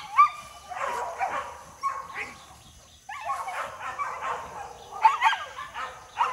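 Hunting dogs barking and yelping in repeated bursts, mixed with high sliding whines.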